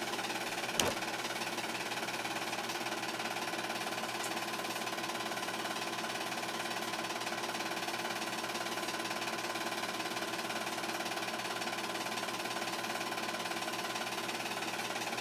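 8mm film projector running steadily, its motor and film mechanism making an even mechanical clatter. A single sharp click comes about a second in.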